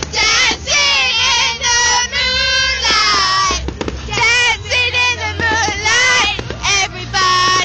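Several girls singing loudly together in high voices, in short phrases with brief breaks between them.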